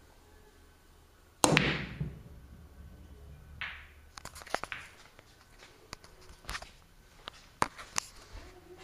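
Pool shot: the cue strikes the cue ball with a sharp click about a second and a half in, followed by a low rumble of balls rolling across the cloth. Several more separate clicks of balls hitting each other and the cushions follow over the next few seconds.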